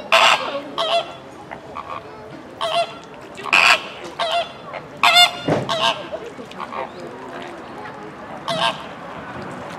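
A flock of flamingos calling with short, goose-like honks, several in quick succession. The calls come thickest in the first six seconds, then thin out to a single honk near the end over the steady background hum of the pond.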